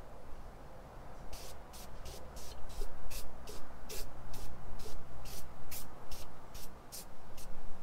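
Aerosol can of dye-penetrant cleaner sprayed in short hissing bursts, about three a second, onto a cast iron cylinder head to clean it before the penetrant goes on.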